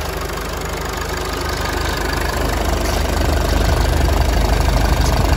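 Mercedes-Benz GLK250 BlueTEC's 2.1-litre four-cylinder diesel idling steadily, heard with its top cover removed. It grows louder from about two seconds in as the microphone moves in close among the engine-bay parts.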